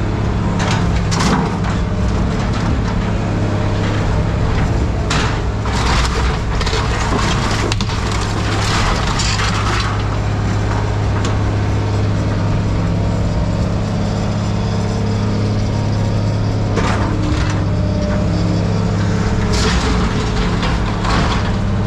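A heavy machine's engine runs steadily while scrap metal is crushed and torn apart: repeated bouts of crunching and cracking, loudest about five to ten seconds in and again near the end. What is being crushed is a scrapped John Deere.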